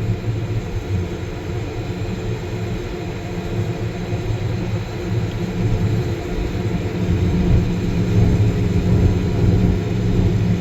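John Deere combine running while harvesting wheat: a steady low drone of engine and threshing machinery that gets a little louder in the second half.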